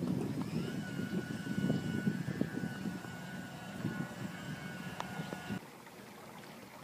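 Wind buffeting the microphone with a gusty low rumble and crackles, over a steady high-pitched whine that starts about half a second in; both cut off abruptly near the end.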